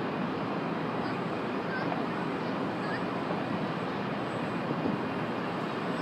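Steady hum of distant city traffic.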